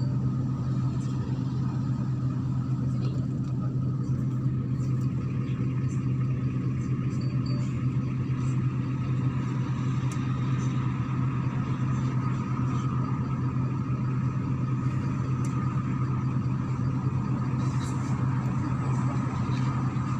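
MAZ-103.486 city bus running, heard from on board: a steady low engine drone with a faint steady whine above it and a few light clicks and rattles.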